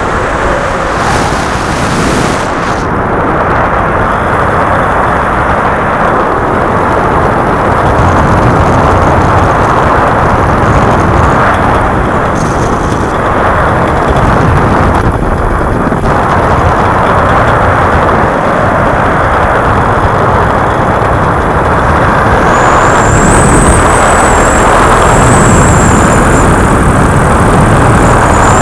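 Paramotor in powered flight: its engine running and wind rushing over the microphone, a loud, steady noise. A thin, wavering high whine comes in about three-quarters of the way through.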